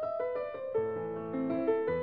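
Background music played on piano or electric piano: a melody of quick notes, joined by bass notes about a second in.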